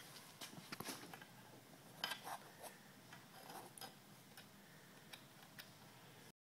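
Faint, scattered clicks and taps of a steel de-stringing cable and its metal pins being fitted onto the limb tip of a compound bow, the loudest about two seconds in. The sound drops out briefly near the end.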